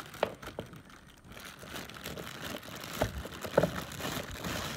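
Hand-tightening a socket on a car battery's hold-down bolt: a few light clicks and knocks of metal on metal, with plastic sheeting crinkling.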